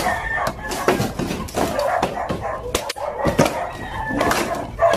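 A machete chopping at bamboo posts while a bamboo-and-timber shack is knocked apart: a string of sharp knocks and cracks, with animal calls behind.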